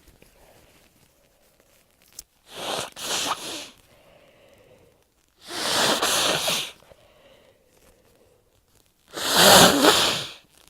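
Three sneezes from a person with a heavy, congested head cold, spaced three to four seconds apart, the first about two and a half seconds in and the last the loudest.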